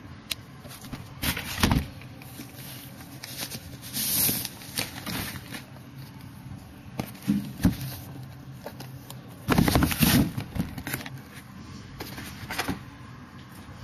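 Packaging of a new laptop being handled and opened: irregular rustling and scraping, with the loudest bout of handling about ten seconds in.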